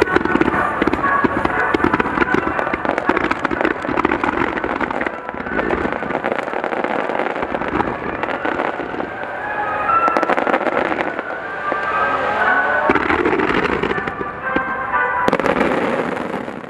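Finale barrage of aerial firework shells, with many bursts in quick succession and overlapping bangs and crackle.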